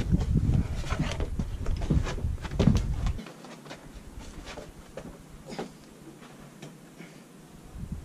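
Scattered knocks and clatter of the Piaggio Vespa GTS scooter body being lifted and shifted off its unbolted engine and rear wheel. A low rumble runs under the knocks for the first three seconds, then the sound drops to a few lighter knocks.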